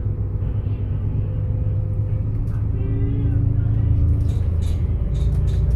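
Double-decker bus driving, heard from on board: a steady low rumble of engine and road noise, with a few sharp rattles or clicks in the last second or so.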